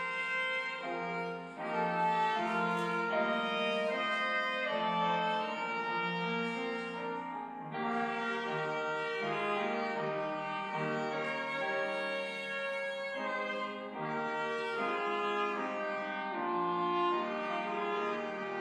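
Slow instrumental music: a melody instrument holding long, steady notes over a sustained accompaniment.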